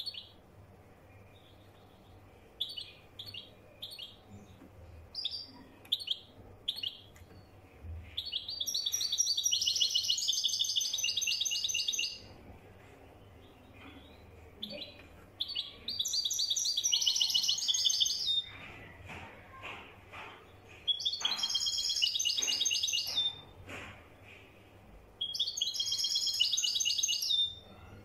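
European goldfinch singing in the Moroccan 'Marrakchi' song style: scattered short chirps at first, then four long phrases of rapid, high twittering trills, each two to three seconds long.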